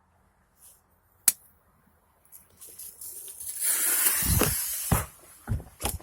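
Homemade 2-inch aerial firework shell going off. A sharp click comes about a second in, then a hiss builds into a loud rushing hiss with low thumps, and sharp cracks begin near the end as the flying fish and zipper effects fire.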